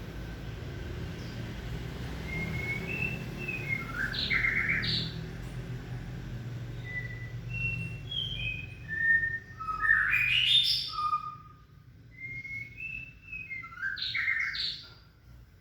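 White-rumped shama singing three phrases. Each opens with clear whistled, gliding notes and ends in a quick burst of notes; the middle phrase, about 10 s in, is the loudest.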